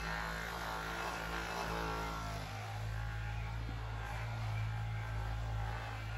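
Caresmith Charge Flex cordless massage gun running against the body, a steady electric buzz from its percussion motor. Its tone shifts slightly about two and a half seconds in.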